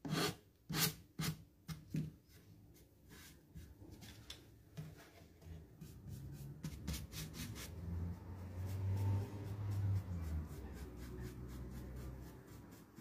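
Sanding file scraped in short, quick strokes along the paper-covered edge of an MDF box, about six strokes in the first two seconds, sanding off leftover scrapbook paper. Softer rubbing follows, with a brief low rumble about eight seconds in.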